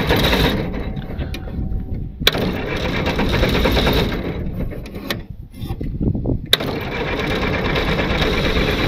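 Ford Model T's four-cylinder engine running while the car is driven. The sound changes abruptly with a sharp click about two seconds in, and again around five and six and a half seconds in.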